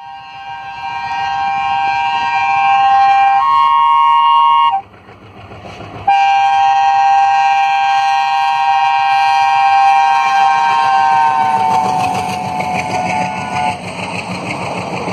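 Diesel locomotive of the Indian Railways WDM-3 series sounding its multi-tone horn in two long blasts, a break of about a second and a half between them; near the end of the second blast the pitch drops as the locomotive passes close by. Then the passenger coaches run past with steady wheel noise on the track.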